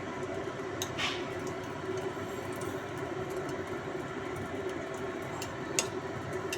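Steady rushing kitchen background noise with a few sharp clinks of utensils against cookware. The loudest clink comes about a second in and rings briefly, and another comes near the end.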